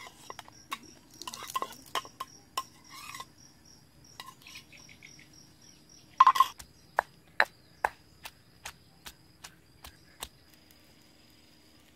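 A spoon clinking against a ceramic plate as chilies, garlic and shallots drop into a stone mortar, then a stone pestle pounding in the mortar: one loud strike about six seconds in, followed by evenly spaced strikes, about two and a half a second, that grow fainter.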